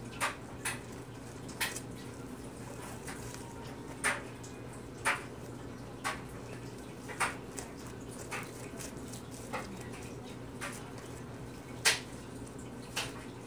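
Blue homemade slime with beads mixed in being stretched and kneaded by hand, giving irregular sharp clicks and pops, roughly one a second, the loudest near the end.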